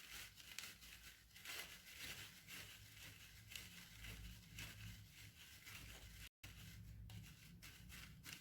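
Faint scratchy rubbing in quick irregular strokes: a damp fenugreek-and-egg mixture being worked by hand through a plastic sieve, with a short break about six seconds in.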